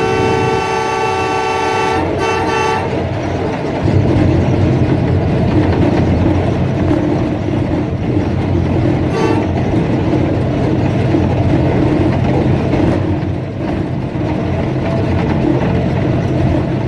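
Diesel locomotive air horn on the Tezgam Express sounding a long blast followed by a short one, then the steady rumble of the train passing at speed.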